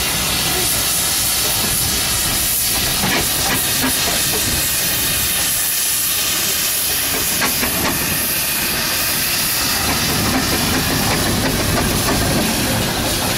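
Steam traction engine venting steam: a loud, steady hiss with no let-up.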